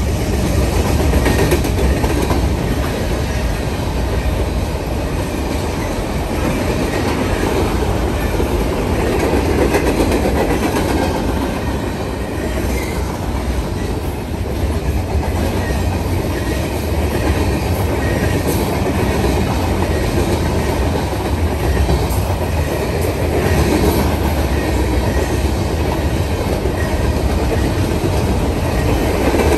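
Freight cars of a fast-moving train rolling past: a steady rumble of steel wheels on rail, with repeated clicks of wheels over the rail joints.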